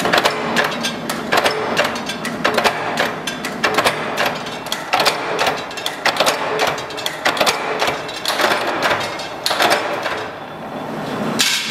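Mechanical punch press striking a steel motorcycle wheel rim over and over, piercing its spoke holes as the rim is turned through the die: sharp metallic strikes about two to three a second, pausing briefly near the end before one more strike.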